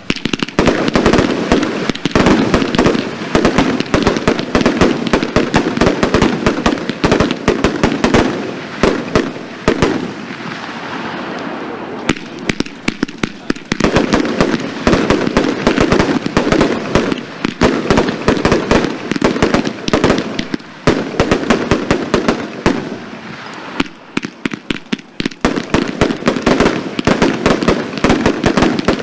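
A 100-shot firework cake firing in rapid succession: a dense, continuous string of sharp bangs, several a second, easing briefly about ten seconds in and again a little past twenty seconds.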